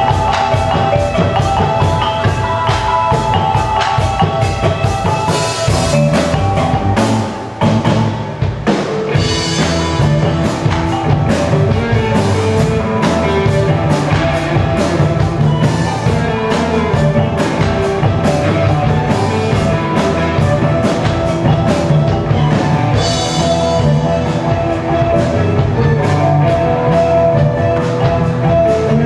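Live ensemble music blending Minangkabau traditional instruments, gandang drums and talempong gong-chimes, with a rock band of electric guitar, bass guitar, keyboard and drum kit, driven by a steady drum beat. The music drops briefly about seven seconds in, then picks up again.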